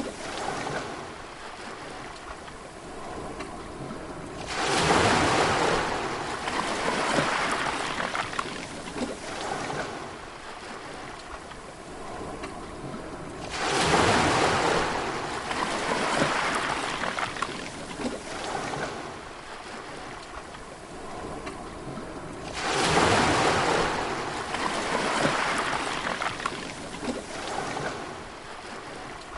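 Sea waves breaking on a shore, three times about nine seconds apart, each crash swelling suddenly and then hissing away as the water washes back.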